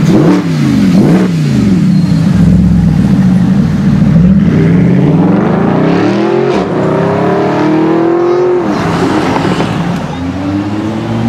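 Mercedes-Benz SLS AMG's 6.2-litre V8 through an Akrapovic exhaust: two quick revs at the start, then a steady stretch before the car pulls away with the engine note rising for several seconds. The note falls sharply about three-quarters of the way through, then climbs again near the end.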